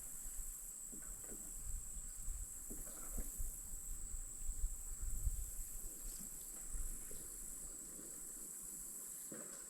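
Insects singing as a steady, unbroken high-pitched drone, with soft low bumps in the first several seconds.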